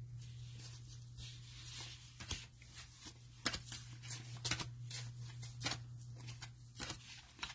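Trading cards being handled and flipped through one by one, a run of soft irregular clicks and slides, over a steady low hum.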